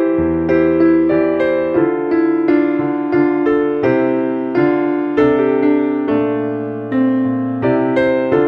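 Piano playing a hymn in full chords, new notes struck about every half second.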